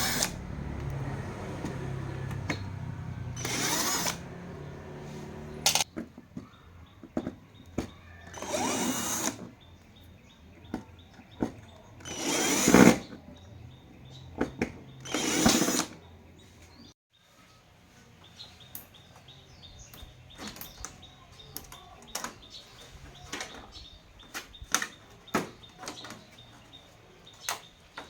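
Small handheld power tool running: a steady motor hum, then several short bursts of about a second each, with scattered clicks and knocks from handling in between.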